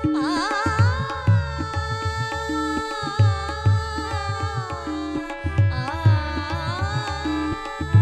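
Tabla and harmonium accompanying a woman singing a Marathi abhang. The tabla plays a steady rhythm of deep bass strokes under the harmonium's held reed notes, and her voice glides through ornamented phrases near the start and again about two-thirds of the way through.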